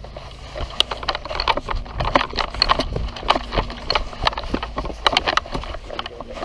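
Footsteps crunching and crackling through dry undergrowth and twigs, with dense, irregular cracks and rustles over a low rumble.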